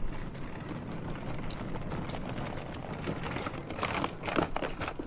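Wheeled suitcases rolling over paving, a steady rumble with a quick run of clacks about three to four seconds in.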